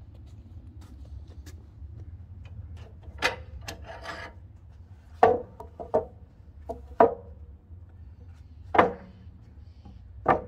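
Freshly sawn Douglas fir boards being handled and stacked, wood knocking on wood in several separate sharp clacks with some rubbing between them, over a low steady hum.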